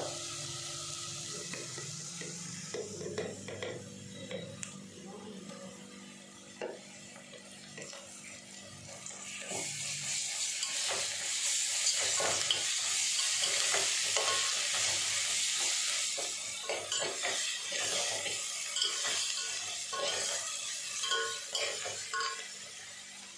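Dalda vanaspati sizzling in an aluminium pot with whole spices, while a metal spoon clinks and scrapes against the jar and the pot as more fat is scooped in and stirred. The sizzle swells about ten seconds in and stays loud for several seconds before easing off.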